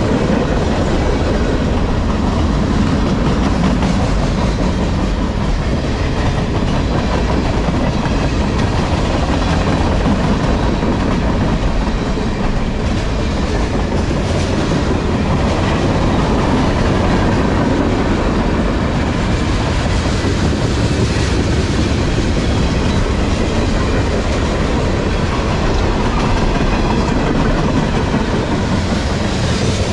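Freight cars (covered hoppers and tank cars) rolling steadily past at close range: steel wheels running on the rails with a continuous loud rumble and clacking over the rail joints.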